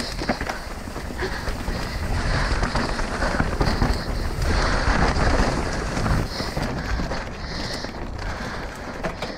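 Mountain bike riding down a rough, rocky trail: tyres and bike clattering and rattling over rocks with many sharp clicks, and wind on the microphone. It grows louder about two seconds in and eases off again a little after the middle.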